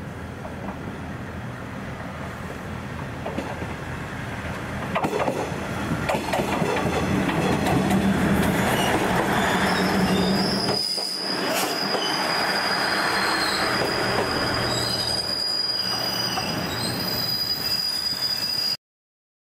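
A train running alongside a station platform, growing louder over the first several seconds, with a steady high-pitched wheel squeal from about halfway through. The sound cuts off suddenly near the end.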